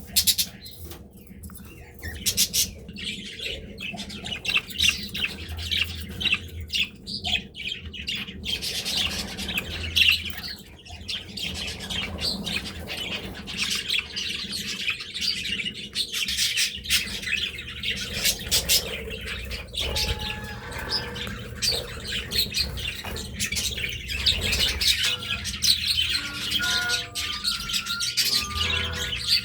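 Budgerigars chattering: a continuous stream of fast chirps, warbles and squawks.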